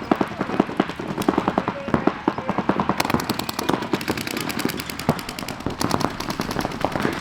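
Paintball markers firing in rapid streams of sharp pops, several guns overlapping, with the shots growing denser and sharper about three seconds in.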